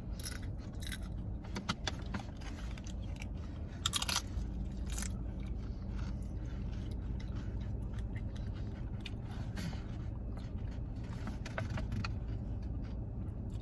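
Close-up chewing and crunching of tortilla chips, with scattered crisp crunches, the strongest about four seconds in. A steady low hum runs underneath.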